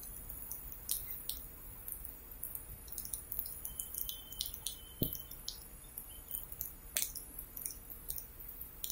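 Faint scattered clicks and ticks at irregular intervals over a low steady rumble, with a slightly stronger click about five seconds in.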